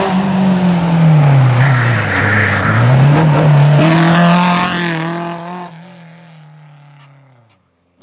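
Alpine-Renault A110 rally car's four-cylinder engine driven hard. Its pitch drops for a couple of seconds, climbs again and holds, then fades away over the last couple of seconds as the car goes by.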